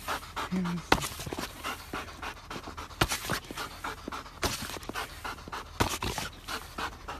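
Dog panting quickly and hard, with a few sharp knocks.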